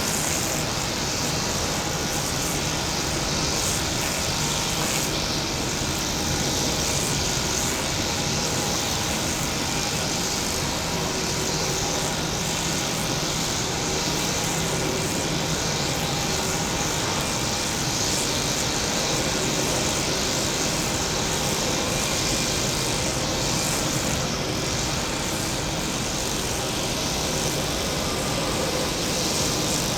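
Jet engines of a Boeing 777 airliner running steadily, a constant rushing noise with a faint high whine and no rise or fall.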